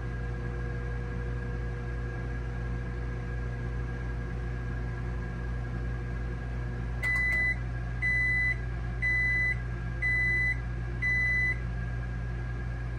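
High Pointe EM925AQR microwave oven running empty with a steady low hum, then five short high beeps about a second apart about halfway through, the usual signal that the heating cycle has ended.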